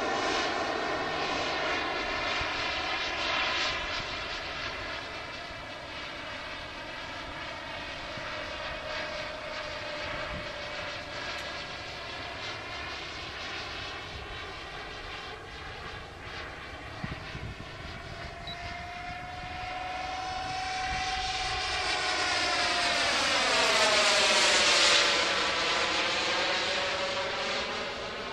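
Motor and propeller of a Tomahawk Futura radio-controlled model plane in flight, a steady pitched drone. It fades a little, then grows louder toward a close pass about 25 seconds in, its pitch dropping as it goes by.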